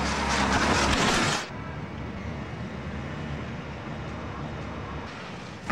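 BMW sedan driven at speed onto the jump ramps: loud engine and tyre noise for about a second and a half, cutting off suddenly to a lower steady rush while the car is in the air. A sharp loud hit comes right at the end.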